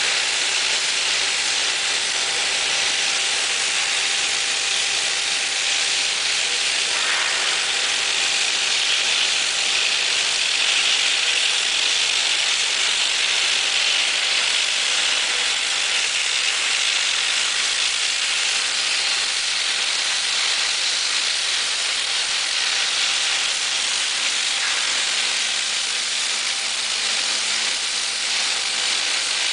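A multi-torch CNC flame-cutting machine cutting steel plate, its torch jets giving a steady, even hiss with a faint steady hum underneath.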